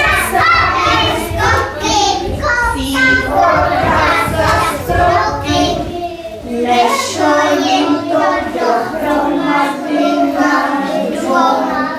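Women and young children singing an action song together.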